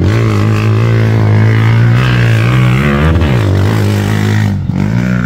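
Motorcycle-sidecar tricycle engine running hard at high revs. The revs dip and climb back twice, about three seconds in and again near the end, as the throttle is eased off and opened again.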